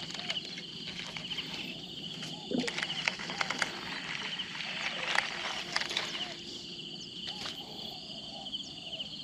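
Outdoor wildlife chorus: a steady, high, rapidly pulsing insect trill with scattered short chirps and repeated lower calls.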